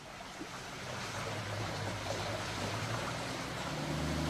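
Motorboat on the water: a steady rush of water that grows slowly louder, joined near the end by a low, steady engine hum.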